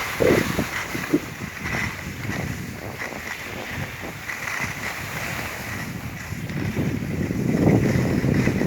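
Wind buffeting the microphone with skis hissing and scraping over snow on a downhill run; it grows louder near the end.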